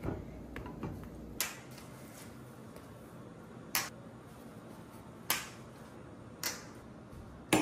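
A knock at the start, then five sharp, light clicks spaced a second or so apart as napkins in napkin rings are set down on a glass dining tabletop.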